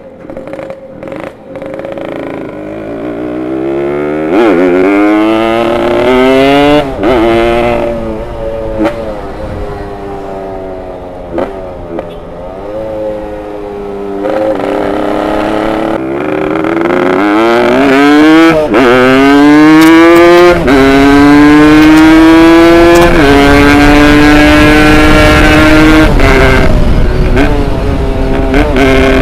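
Tuned two-stroke single-cylinder engine of a Yamaha RX Special motorcycle pulling away and accelerating hard up through the gears. The revs climb and drop back at each shift, then hold high and fairly steady near the end.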